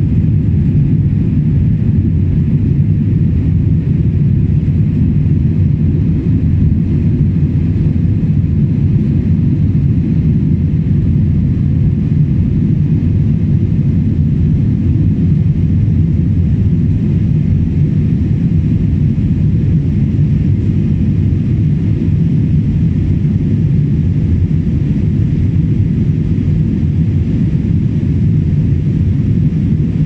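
Jet airliner cabin noise heard from a window seat while climbing after takeoff: a steady, loud, low rumble of the engines and airflow with a faint hiss above it.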